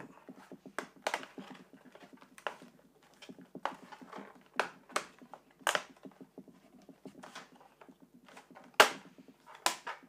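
Plastic bottom access cover of an Acer Aspire 5742 laptop being pressed and snapped back onto the chassis: a string of irregular sharp plastic clicks as its clips catch, the loudest a little before the end.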